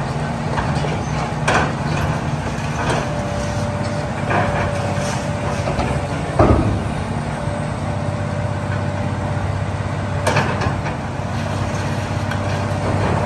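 Long-reach demolition excavator's diesel engine running steadily, with a thin steady whine, while debris from the building crashes and clanks down a few times; the loudest crash comes about six and a half seconds in.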